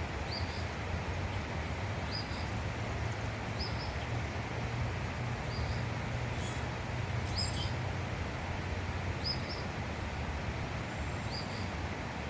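Steady rushing outdoor noise with a low hum underneath, over which a small bird repeats a short, high chirp about every two seconds.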